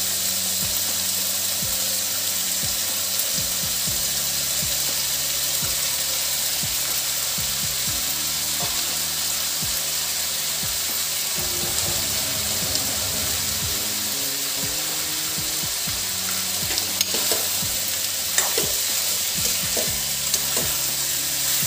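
Food frying in oil in a kadhai, a steady sizzle as boiled potato chunks are tipped onto peas and paneer. A spatula stirs the mix, with a few sharp clicks against the pan in the last few seconds.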